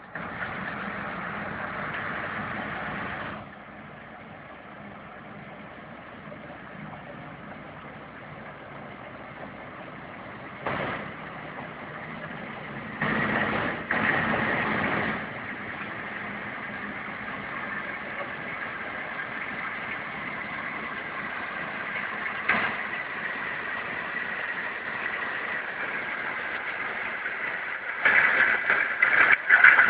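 Engine of a ballast works train running steadily, louder for a few seconds at the start, again about halfway through, and near the end.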